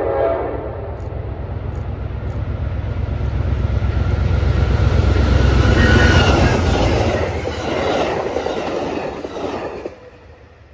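Amtrak passenger train led by a GE Genesis diesel locomotive passing at speed, with the last of a horn blast at the very start. The rumble of the locomotive and wheels builds to its loudest about six seconds in as the locomotive goes by, then the cars rattle past. It cuts off suddenly near the end as the last car clears.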